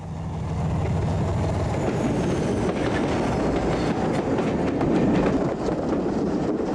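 English Electric Type 4 (Class 40) diesel-hauled train going by, a steady engine drone with the wheels clicking over the rail joints. It grows louder to about five seconds in.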